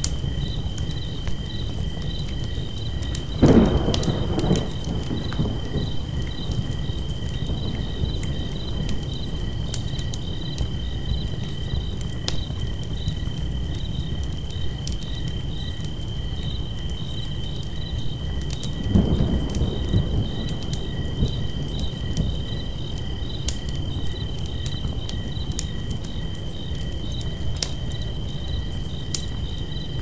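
Campfire crackling with steady chirping crickets and a low rumble underneath. Two louder, dull, rumbling thuds come about three and a half seconds in and again around nineteen seconds.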